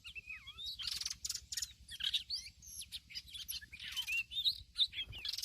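Songbird singing a rapid, varied run of whistles, chirps and buzzy trills, with a faint low rumble beneath and a soft knock near the end.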